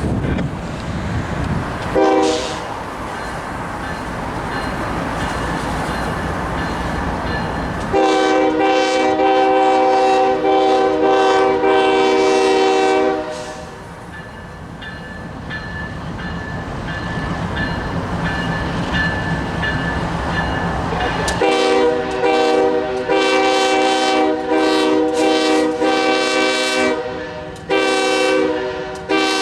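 Union Pacific diesel locomotive's multi-chime air horn in a horn show: a short toot about two seconds in, one long blast of about five seconds, then a run of rapid broken blasts and another short burst near the end. Between the blasts the locomotive and train rumble past with some wheel clatter.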